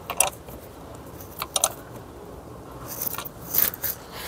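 A few short clicks and scrapes of hands handling the car battery's terminal and cable, with a small cluster of clicks near the end.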